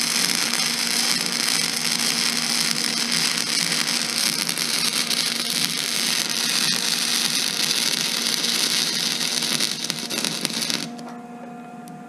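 Wire-feed welder arc crackling steadily as a steel pipe stub is welded onto a steel tank; the arc stops abruptly near the end. A faint steady electrical hum runs underneath.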